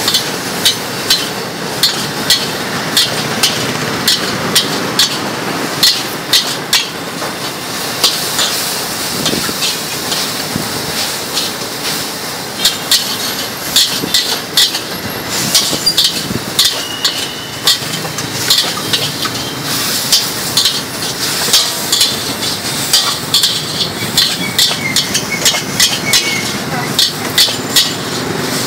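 Metal spatula striking and scraping a large steel wok in quick, repeated strokes, about two a second, as noodles and greens are stir-fried, over a steady background noise.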